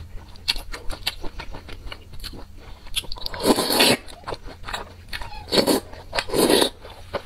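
Close-miked eating of wide flat noodles in spicy broth: wet chewing and small mouth clicks, with three loud slurps from about three seconds in, the first the longest.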